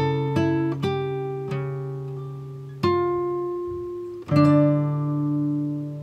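Background music: slow, gentle plucked-string notes and chords, each struck and left to ring out and fade. A fuller chord comes in a little over four seconds in.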